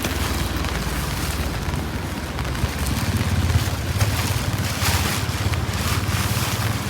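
Strong wind buffeting the microphone: a steady low rumble under a hiss, with brief gusts about three and five seconds in.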